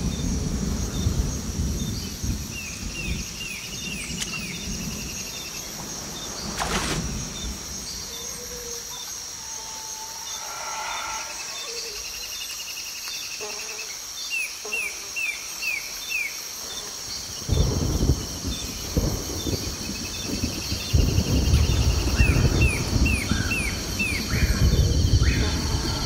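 Tropical rainforest ambience: a steady high insect drone with birds calling over it, in repeated runs of four or five quick chirps and a few longer whistles. A low rushing noise sits under it at the start, fades out, and returns strongly in the last third, with one sharp crack about seven seconds in.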